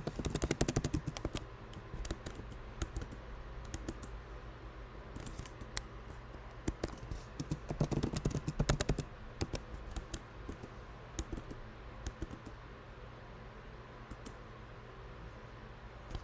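Typing on a computer keyboard: quick runs of key clicks near the start and again about eight seconds in, with sparser, scattered keystrokes between and after.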